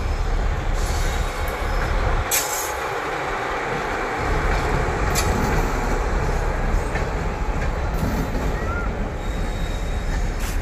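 Indian passenger train arriving, its coaches rolling past with a steady rumble of wheels on rails and a few sharp clicks.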